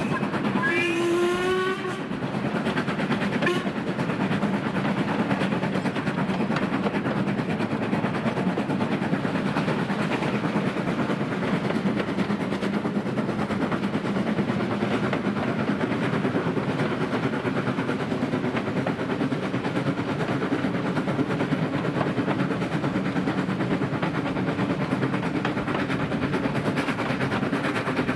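Ivatt 2-6-2T steam tank locomotive working a train uphill, its exhaust and running gear heard close up and steady throughout. Its whistle sounds once near the start for about a second and a half.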